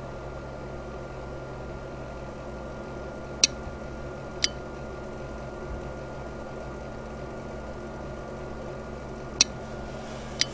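Clear-cased 12-volt relay, driven by a PICAXE microcontroller through a Darlington driver chip, clicking as it switches: four sharp clicks in two pairs about a second apart, over a steady hum.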